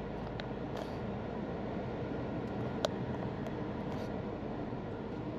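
Cabin noise of a SsangYong Torres T7 4WD picking up speed gently in third gear at low city speed: its 1.5-litre turbo petrol engine and tyre noise, heard from inside the cabin. A single sharp click about three seconds in.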